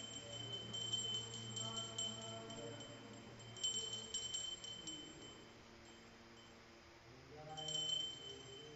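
Metal temple hand bell rung in three bursts of quick strikes, its high clear ring carrying on between them, as in the bell-ringing of an aarti offering.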